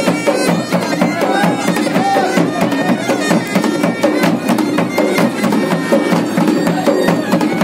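Garhwali band music: a masakbeen (Garhwali bagpipe) plays a wavering melody over a steady drone, with dhol and damau drums beating a fast, even rhythm.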